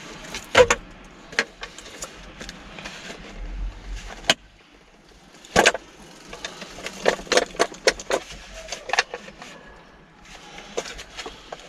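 Clicks, knocks and light rattles of a removed VW T4 door mirror being handled and turned over by hand, with small metal clinks, busiest about seven to nine seconds in.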